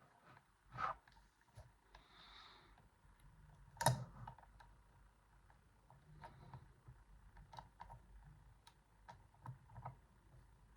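Small metal clicks and light scraping from a homemade pick working the sliders inside a Yuema-style slider lock. The clicks come at irregular intervals, and the loudest is about four seconds in.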